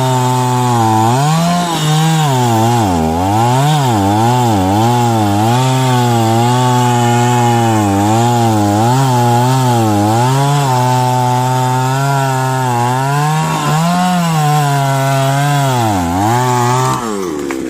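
Chainsaw cutting into a tree, its engine note sagging and recovering again and again as the chain bites into the wood under load. The engine drops off near the end.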